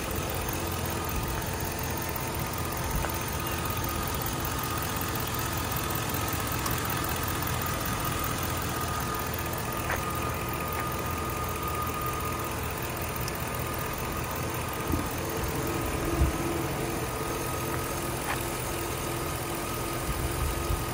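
2006 Chevrolet Avalanche's Vortec V8 idling steadily, heard from the open engine bay, about a minute into a cold start.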